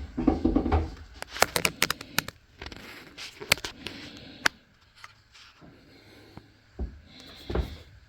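Handling noise: a quick run of sharp clicks and knocks in the first half, then two dull thumps near the end, with room echo.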